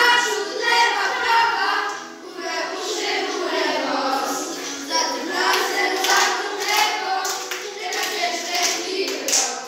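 A group of children singing a song together, with a few sharp hand claps in the second half.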